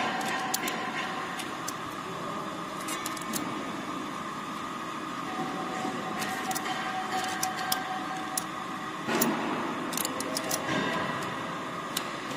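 Scattered sharp metal clicks and taps of a hex key working the blade-holder screws of a shoelace tipping machine, thicker in the second half, with a louder scrape about nine seconds in. A steady machine hum runs underneath.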